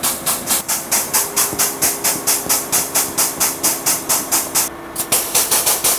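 Ballast pump pushing Rim Guard beet-juice fluid through a hose into a tractor tire, with a rapid hissing chuff about five times a second that pauses briefly near the end.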